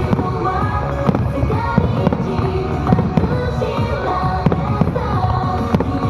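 Fireworks bursting in quick succession, several bangs a second, over the show's accompanying music.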